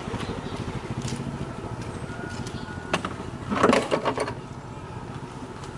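Metal clatter about three and a half seconds in as a spoked motorcycle wheel is set down in a handcart on top of metal parts, with a single click just before it. Under it, a vehicle engine runs and fades away.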